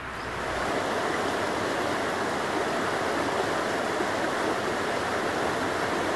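Moving water rushing steadily, fading in over the first second.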